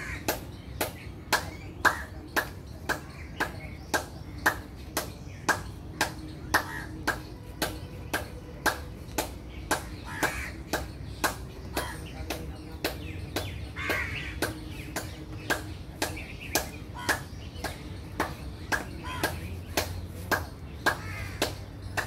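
Steady, evenly spaced ticking, a little over two sharp clicks a second, over a low hum.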